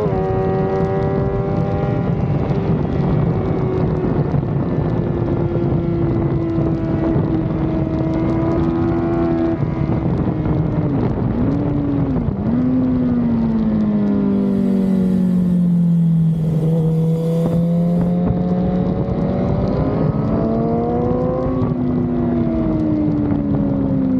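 Sport bike engine heard from on board at track speed over heavy wind rush: the engine note sags slowly, wavers twice about eleven seconds in, drops to its lowest a few seconds later, then climbs steadily under acceleration, steps down once at a gear change, and eases off near the end.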